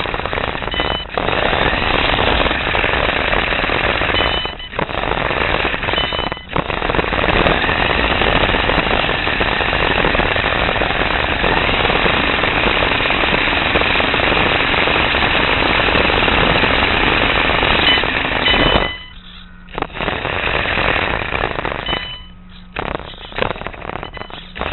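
A radio-controlled car driving fast over rough pavement, heard from a camera fixed to its chassis: a loud, dense rattle of the chassis, drivetrain and tyres. It drops out briefly twice early on and falls away twice in the last third when the car slows and stops.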